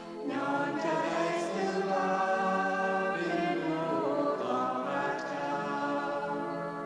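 A choir singing slowly in long held notes.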